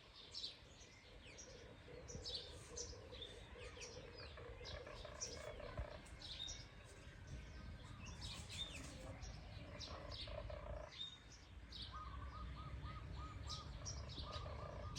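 Several small birds chirping and twittering in many short, high notes over a faint low rumble of background noise, with a run of evenly repeated lower notes near the end.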